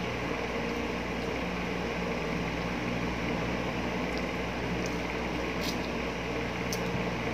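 Steady mechanical room hum from an appliance, with a few faint, soft, wet mouth clicks as ripe mango is eaten by hand.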